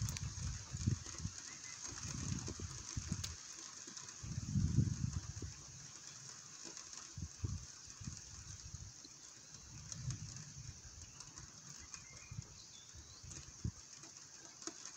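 Steady rain hiss in a thunderstorm, with short, irregular low rumbles coming and going every second or two.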